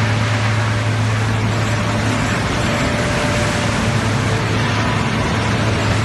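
PE film recycling and washing line running: a steady low hum under a dense, even rushing noise.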